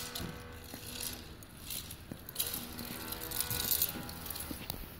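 Small plastic wheels of a toy doll stroller rattling and scraping over paving slabs as it is pushed. A steady droning tone sounds twice alongside it.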